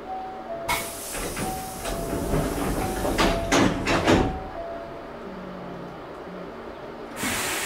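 Hankyu 6300-series train stopped at a station, heard from inside the car: a two-note chime alternates, then the sliding doors close with a rush of air and a run of knocks and clatter, loudest about three to four seconds in. A hiss of air comes in near the end.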